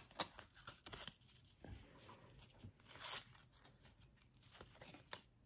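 Faint rustling and light clicks of a stack of trading cards being handled and slid apart between the hands.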